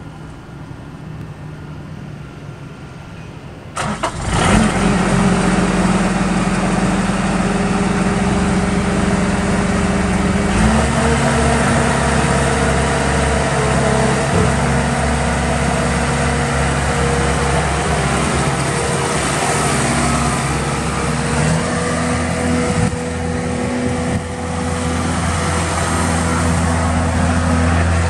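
Bobcat S630 skid-steer loader's diesel engine starting up about four seconds in, then running steadily. Its speed steps up about eleven seconds in, and the pitch shifts again in the last few seconds as the loader drives off.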